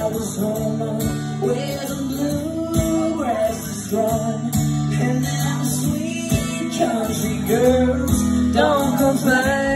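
Live acoustic guitar strummed with a man singing along, a solo performance at a steady level.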